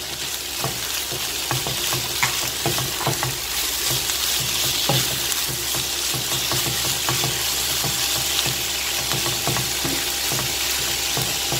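Sliced chicken, onion, peppers and cabbage sizzling in an oiled frying pan on high heat, with a wooden spatula stirring through them and making frequent light knocks and scrapes against the pan.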